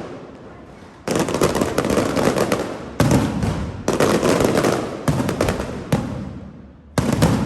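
Aerial fireworks shells bursting in succession: about five sudden loud bangs, each trailing off into a dense crackling that slowly fades.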